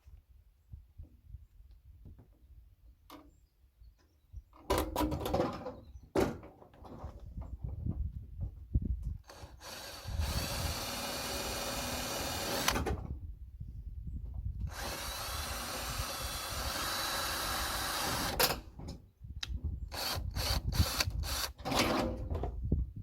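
Power drill running in bursts while working on a rain gutter: a short burst about five seconds in, two steady runs of about three seconds each, then several quick pulses of the trigger near the end.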